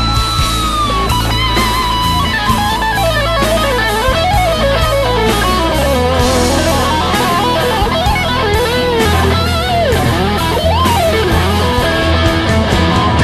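Electric guitar lead solo over a rock backing track with bass and drums. It opens on a long held note that bends down about a second in, then moves into quick melodic runs with bends and vibrato, settling on a steadier held note near the end.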